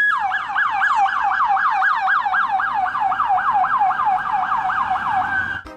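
Ambulance siren sounding in a fast yelp pattern, about five quick falling sweeps a second, after a brief steady tone at the start. It cuts off suddenly near the end.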